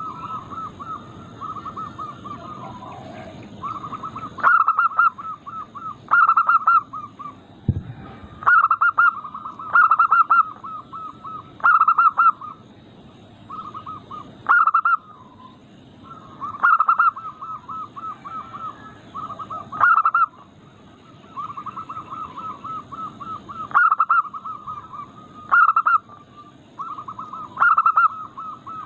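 Zebra dove (perkutut) cooing: rapid runs of short, soft coos with louder accented phrases repeating about every two seconds. A single low thump comes about eight seconds in.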